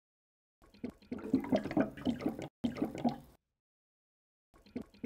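Water cooler glugging, water gurgling and bubbling through the bottle. It runs for about three seconds with a brief break, stops, then starts again near the end.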